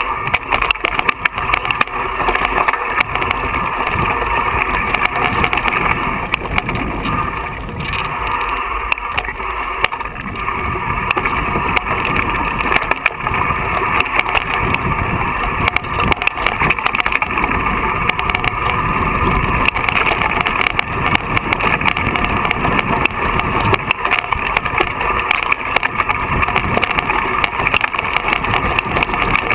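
Mountain bike riding over a loose, rocky trail, heard from a camera mounted on its handlebar: continuous rattling and knocking of the bike and tyres over stones, with rushing air noise.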